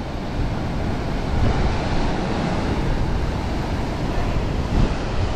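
Steady rush of a fast, heavy river current churning into white water, with wind on the microphone.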